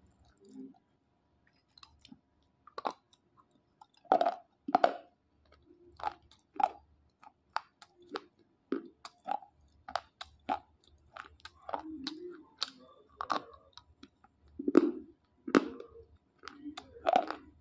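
Dry slate pencils being bitten and chewed: a string of sharp, separate crunches, about one or two a second, starting about three seconds in.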